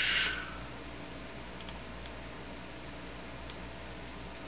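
A short scuffing rustle right at the start, then a few light computer-mouse button clicks: a quick double click about a second and a half in, another just after, and a single click near the end, over a faint steady hum.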